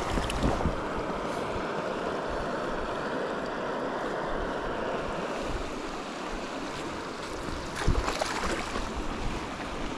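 Shallow mountain stream running over a gravel riffle: a steady rush of moving water, with a few short knocks about eight seconds in.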